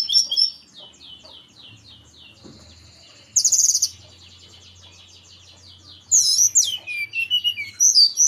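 Blood-breasted flowerpecker (tledekan gunung) singing a fast run of thin, high chirps. It breaks into louder, sharper phrases about three and a half seconds in and again from about six seconds.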